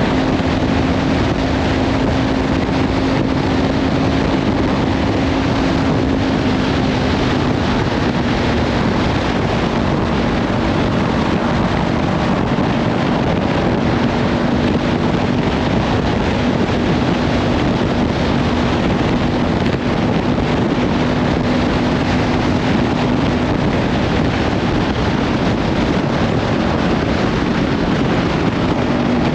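Kawasaki Ninja 500 parallel-twin engine through a Leovince slip-on exhaust, cruising at a steady note that eases slightly lower about seven seconds in. Heavy wind noise on the microphone covers much of it.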